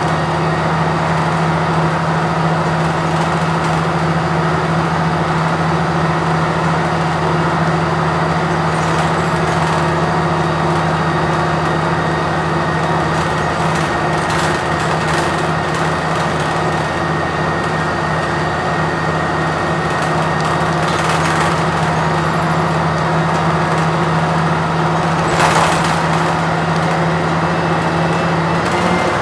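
Cummins Westport ISL-G natural-gas straight-six engine of a Blue Bird transit bus running steadily while the bus is under way, heard from inside the cabin with road noise. Scattered rattles and one sharp knock about 25 seconds in.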